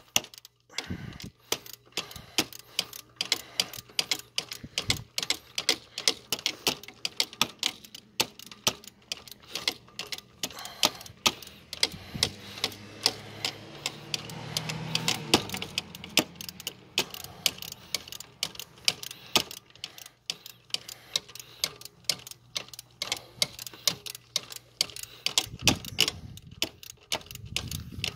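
Ratchet socket wrench clicking steadily, several clicks a second, as the serpentine belt tensioner bolt is turned to tighten the belt.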